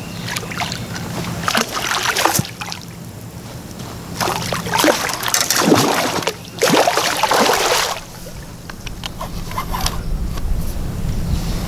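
A hooked gar thrashing and splashing at the water's surface in bursts, the longest and loudest from about four to eight seconds in.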